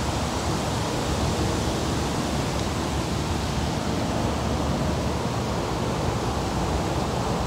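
Wind blowing across the microphone: a steady, even rushing noise, heaviest in the low end.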